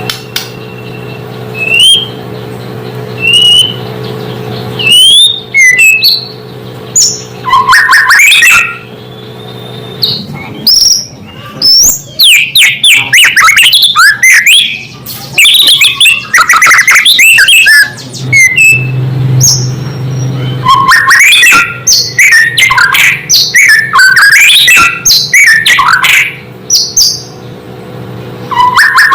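White-rumped shama singing: a few separate whistled notes at first, then from about five seconds in a loud, near-continuous run of varied whistles and fast chattering phrases. A steady low hum runs underneath.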